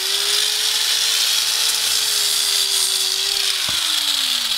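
Angle grinder running against a horse's hoof: a steady motor whine under a gritty hiss of grinding. About three and a half seconds in the whine starts to wind down as the grinder is switched off, with a sharp click just after.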